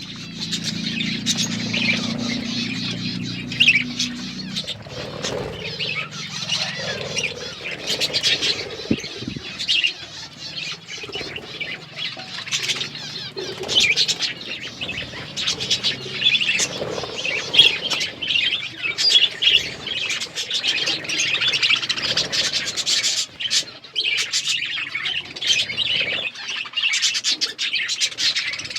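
Budgerigars chirping and chattering continuously, many short rapid chirps overlapping. A low steady hum lies under them for the first four seconds or so.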